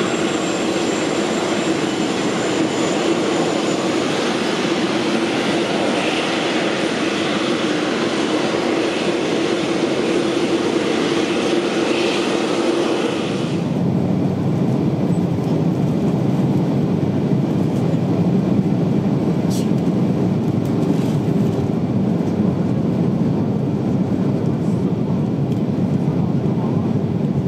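Jet engine noise with a faint high whine slowly falling in pitch, which cuts off about halfway through. It gives way to the steady low drone heard in the cabin of a Boeing 737-500 beside the wing in flight.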